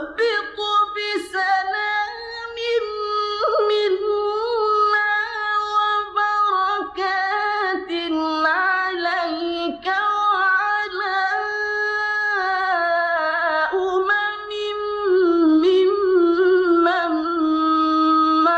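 A high male voice in melodic (mujawwad) Quran recitation, holding long ornamented notes that waver and glide in pitch across several drawn-out phrases. It grows louder in a long sustained note near the end.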